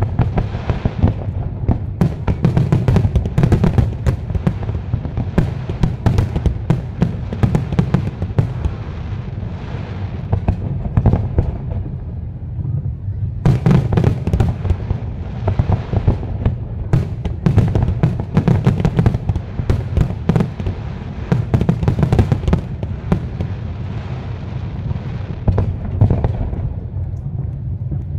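Aerial firework shells bursting in rapid succession with dense crackling over a continuous low rumble. The bangs thin out briefly about twelve seconds in, then come thick again.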